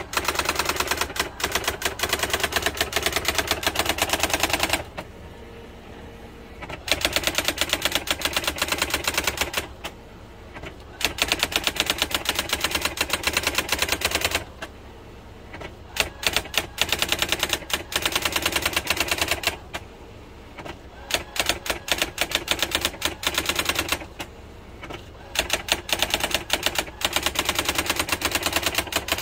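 Brother electric typewriter being typed on in quick runs of keystrokes, a rapid clatter of key strikes lasting a few seconds at a time. Between the runs are short pauses in which only the machine's steady motor hum is left.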